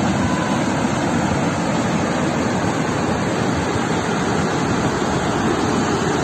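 Rushing of a river in flash flood, a wide torrent of muddy floodwater, as a steady, even noise with no break.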